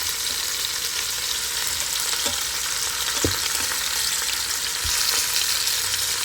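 Chicken drumsticks sizzling in hot olive oil in an Instant Pot on the sauté setting: a steady, even hiss, with a few faint knocks.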